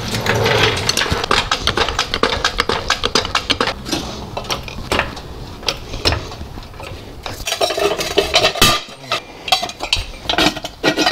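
Steel jack stands being shifted and adjusted under a car, giving a quick run of metallic clinks and clanks that come in two clusters, one early and one near the end.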